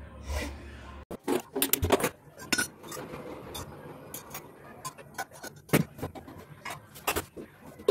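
Oil heating in a frying pan on a gas stove, crackling with irregular sharp pops and clicks, thickest about a second in and with a few louder single pops later.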